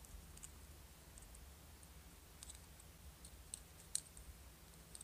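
Faint, scattered clicks of small plastic model-kit dashboard parts being handled and pressed together, the sharpest about four seconds in, over near silence.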